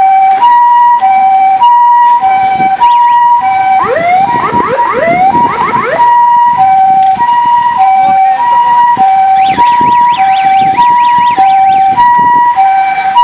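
Police car siren sounding a loud two-tone hi-lo pattern, alternating between a higher and a lower note about every half second. A burst of quick rising whoops overlaps it at about four to six seconds in, and a fast high warble at about ten seconds. The siren cuts off at the end.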